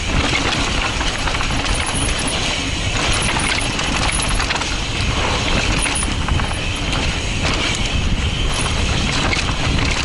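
Mountain bike running fast down a dirt singletrack: tyres rolling over rough dirt and ruts and the bike rattling over bumps, with a steady rush of wind on the microphone.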